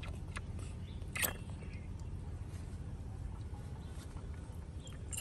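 A baby monkey sucking milk from a plastic feeding bottle: soft little clicks and smacks of its mouth on the teat, with one sharper click about a second in. A steady low rumble runs underneath.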